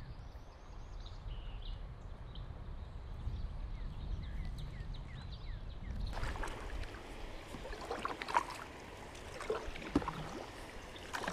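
Water splashing and lapping around a kayak drifting on a fast-flowing river, busier in the second half, with a few hull or paddle knocks.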